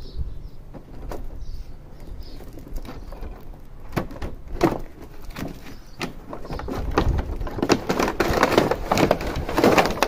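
Unboxing handling noise: irregular knocks, clicks and rustling of packaging, getting busier and louder over the last few seconds.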